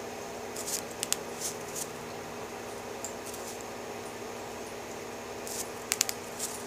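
Fine brush scrubbing dry rust weathering pigment onto a small painted miniature: brief, faint scratchy ticks in two clusters, about a second in and again near the end, over a steady low room hum.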